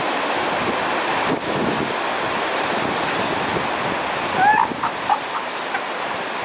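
Surf washing over coastal rocks, with wind buffeting the microphone, a steady rushing noise. About four and a half seconds in come a few brief high-pitched calls that rise and fall.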